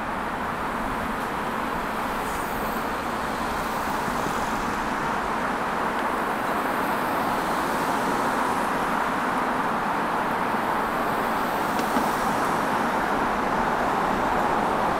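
Steady road traffic noise, a continuous wash of passing cars that grows slowly louder.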